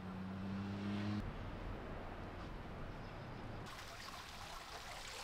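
A low, steady engine hum that stops about a second in. Later, water trickles and splashes steadily through the old wooden gates of a canal lock, which are leaking.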